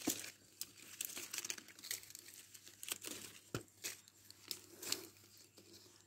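Leaves of a water apple tree rustling and crackling in irregular brushes and crisp strokes as the foliage is handled close to the microphone.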